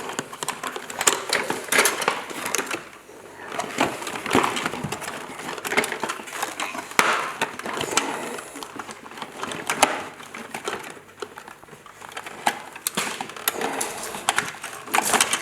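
Irregular clicking, rattling and crinkling of plastic toy parts and packaging being handled during unpacking.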